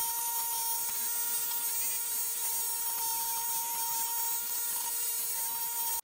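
Bench grinder running steadily with a non-woven abrasive wheel while the aluminum body of a Pro Circuit Shorty silencer is held against it for polishing: a constant motor whine with a hiss from the pad rubbing the metal. The sound stops abruptly at the end.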